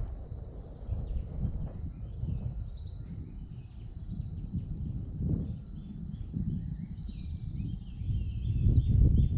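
Wind gusting on the microphone as a low, uneven rumble, strongest near the end, with birds chirping over and over in the background.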